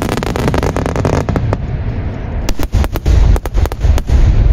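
Fireworks barrage with many aerial shells bursting at once: a deep continuous rumble of booms with dense, sharp crackling cracks, in a cluster at the start and again from about two and a half seconds in.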